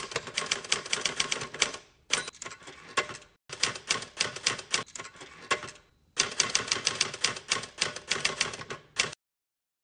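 Typewriter keys clacking in four quick runs of keystrokes with short pauses between them; the typing stops about nine seconds in.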